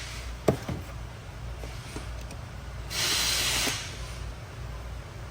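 A sharp knock about half a second in, then a short hiss of air lasting under a second about three seconds in, over a steady low hum.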